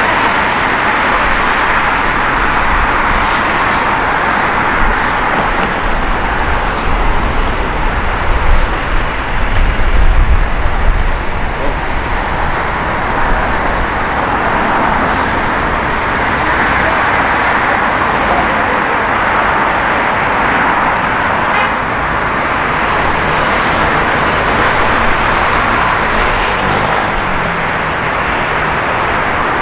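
Steady city street traffic noise, with a louder low rumble for a few seconds near the middle.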